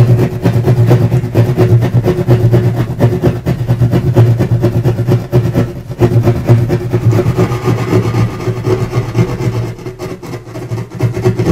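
Drywall jab saw sawing through sheetrock in rapid back-and-forth strokes, a continuous rasping that eases off near the end as the cutout comes free.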